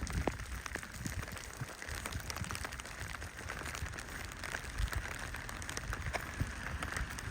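Rain falling, with many scattered sharp drop ticks over a steady hiss and a low rumble underneath.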